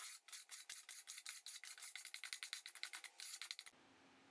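Rapid back-and-forth strokes of a hand tool rasping over painted wood, several strokes a second, while the old paint is worked off the dresser. The rasping cuts off abruptly near the end.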